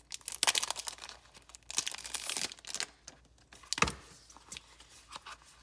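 Packaging crinkling and rustling as items are unwrapped by hand, in two longer bursts, with a single sharp knock a little under four seconds in.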